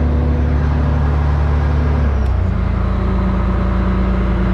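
Boat engine running with a steady low drone; about halfway through the engine note changes and settles at a new pitch.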